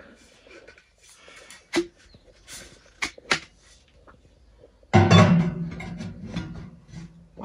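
Metal tent-stove parts clinking and knocking as they are handled and fitted together, then, about five seconds in, a louder metallic ringing that starts suddenly and fades.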